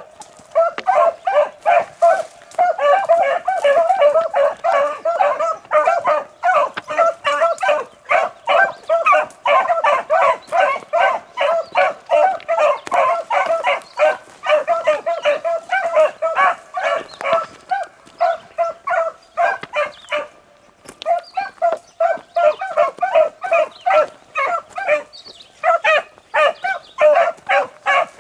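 Beagles baying on a rabbit's trail, a rapid, overlapping string of hound barks, with a brief lull about three-quarters of the way through. The baying shows the hounds are on the scent and running the track.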